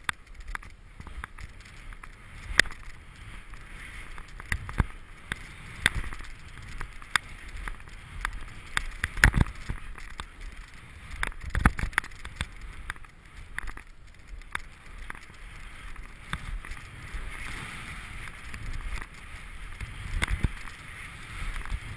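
A run down deep fresh powder snow: a steady hiss of snow rushing under a skier or rider, with sharp knocks and jolts scattered through it.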